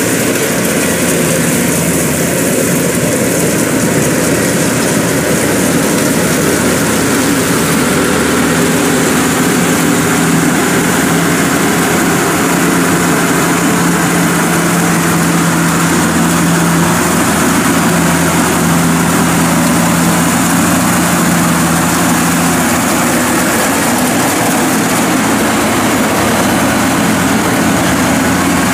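Zoomlion EH100 tracked rice combine harvester running steadily under load as it cuts rice: an even, loud engine drone with a constant pitch.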